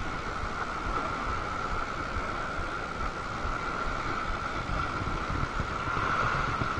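Wind buffeting the microphone over ocean swell surging and washing against a rock ledge.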